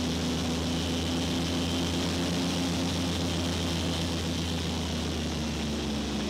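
Airboat's engine and large air propeller running steadily as the boat skims over the water, a constant low drone over a rush of wind and water hiss.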